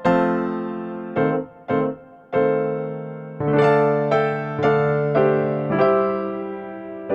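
Background music: electric piano playing a slow melody of struck, fading chords.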